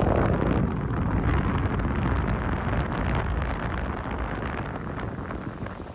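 Wind buffeting the microphone over surf breaking along the beach below, a steady low rumble that eases off over the last couple of seconds.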